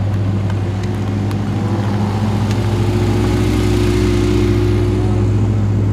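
A car engine idling steadily, with a strong, even low hum.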